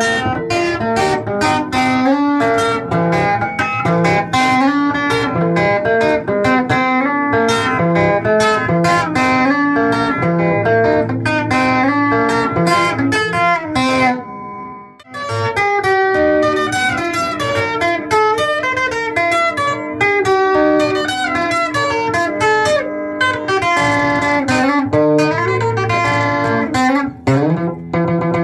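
Band music led by guitar: quick picked guitar notes over a low bass part. The music breaks off for a moment about halfway through.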